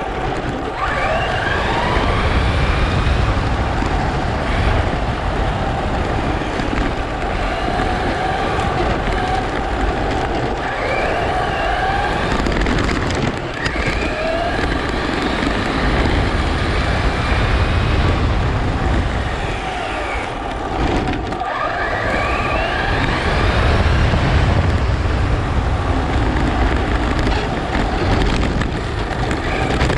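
Traxxas Slash 4x4 RC truck's electric motor whining, its pitch rising with each burst of acceleration several times, over a heavy rumble of wind and tyre noise on the onboard camera's microphone.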